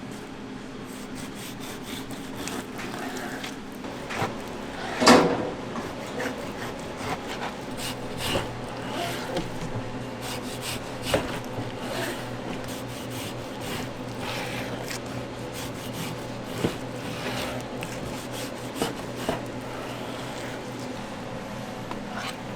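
Kitchen food-preparation sounds: scattered knocks and rubbing of utensils on wood, with one loud knock about five seconds in, over a steady low hum.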